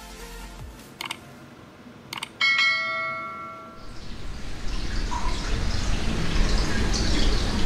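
Subscribe-button sound effect: two short clicks, then a bright bell-like ding that rings out for about a second. After that, steady background noise builds up.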